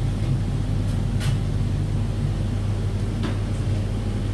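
Steady low mechanical hum of kitchen equipment, with two faint clicks about one and three seconds in.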